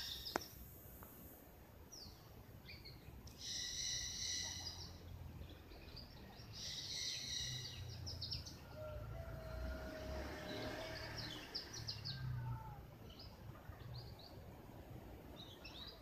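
Birds chirping: many short, high chirps, with two longer buzzy calls a few seconds apart, over a low steady background rumble.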